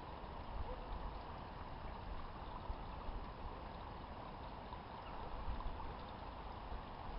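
Faint, steady outdoor background noise with an uneven low rumble typical of wind buffeting the microphone.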